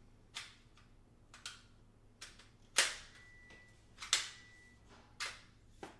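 Parts of an AeroCool Dream Box frame kit knocking and clacking as they are handled and fitted together: about seven sharp knocks, the loudest near the middle, one followed by a faint ringing tone.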